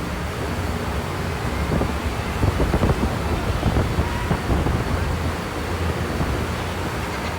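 Simulated blizzard wind blown through a cold storm room, a steady rushing with heavy gusts buffeting the microphone from about two to four and a half seconds in.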